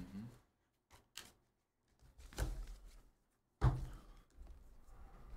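Trading cards being handled and sorted by hand: a couple of light clicks and rustles, then one louder thump about three and a half seconds in, like a card stack knocking the table.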